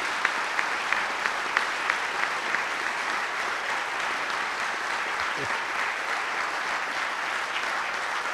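Audience applauding steadily. One nearby clapper's sharp claps stand out at about three a second during the first couple of seconds.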